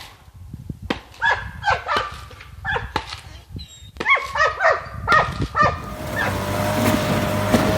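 Hunting dog barking excitedly at a cornered sable: quick high barks in several bursts. About six seconds in they give way to a steady vehicle engine hum.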